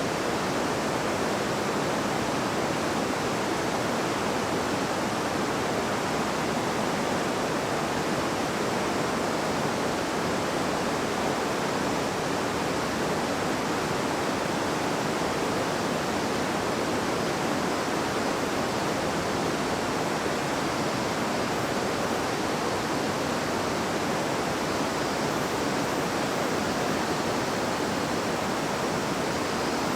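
River water babbling over rocks: a steady, even rush of flowing water with no breaks.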